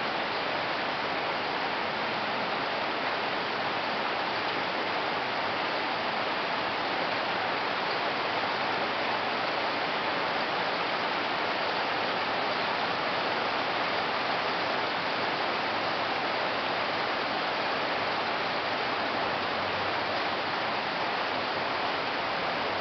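Steady rain falling on trees and puddled pavement, an even hiss with no breaks.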